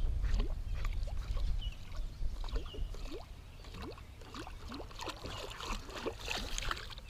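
Small waves lapping against the side of a fishing boat, with short watery plinks and slaps scattered throughout, over a low rumble of wind on the microphone that eases after the first couple of seconds.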